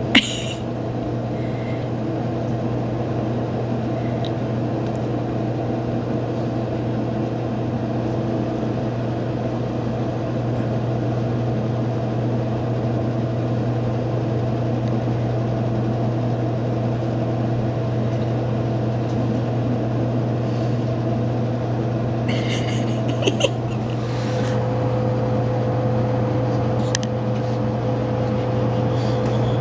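A steady low machine hum. About three-quarters of the way in, a few light clicks come, and then a higher steady tone joins the hum.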